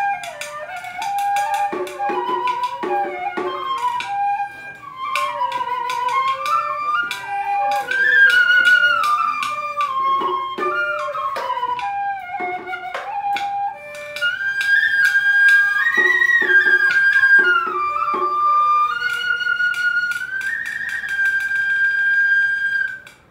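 Vietnamese bamboo transverse flute (sáo trúc) playing an ornamented melody full of bends and slides, over frequent plucked notes from a đàn tranh zither. The flute ends on a long held high note that stops near the end.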